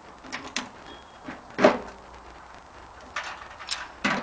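Knocks and clunks of metal parts being handled and pulled free while an old microwave oven is taken apart. There are several light knocks, with the loudest one about a second and a half in.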